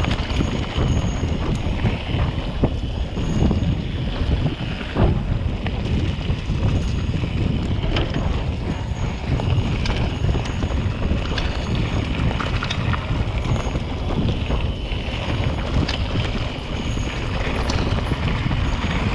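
Wind rushing over the microphone and a bicycle's tyres rolling over a gravel forest road on a fast descent, with frequent small clicks and rattles from the bike over the bumps.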